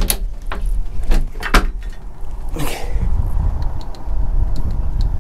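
A handful of sharp knocks and bumps on a fibreglass center-console boat, from a person moving about the deck and console, over a steady low rumble.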